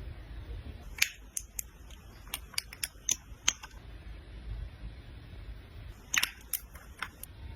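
Sharp clicks and taps of makeup packaging being handled, such as caps and compact cases snapping, in two quick clusters: about nine clicks in the first few seconds, then about five more near the end, over a faint low hum.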